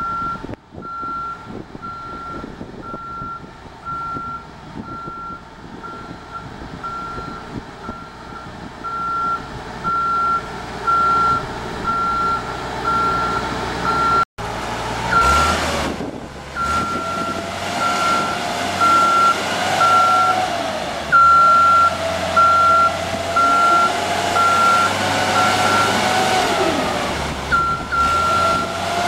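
JLG 450AJ boom lift's motion alarm beeping over and over at one steady pitch while the boom is worked. From about halfway through, the machine's engine and hydraulics run louder, their pitch gliding up and down as the functions are operated.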